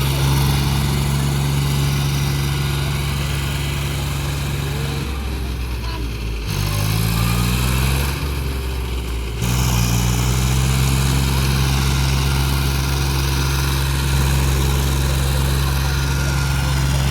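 Heavy diesel engine of a tractor or earth-moving machine running steadily at high speed. About five seconds in its speed drops, climbs back in a rising rev, and returns to the earlier steady note near ten seconds.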